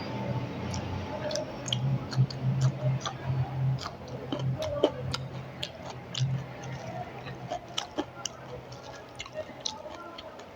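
Close-miked chewing of rice with mashed red-lentil bhorta, with many short wet mouth clicks and smacks. A low hum comes and goes underneath.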